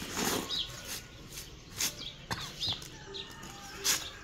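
Birds chirping in short repeated calls, mixed with several brief rustles and knocks of something being handled, the loudest right at the start and near the end.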